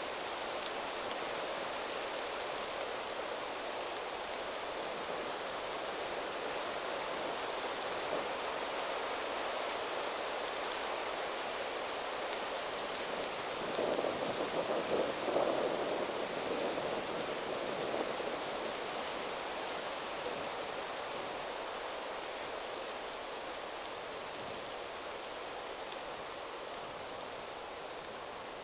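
Wind rustling steadily through the leaves of forest trees, swelling into a stronger gust about halfway through.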